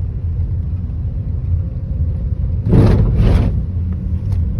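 Steady low road rumble of a car heard from inside the cabin while driving. About three seconds in, two short bursts of noise half a second apart rise over it.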